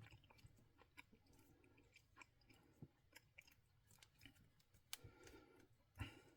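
Near silence with faint, scattered clicks and crinkling from hands handling a power cord and its wrap during the repair. There are two slightly sharper clicks near the end.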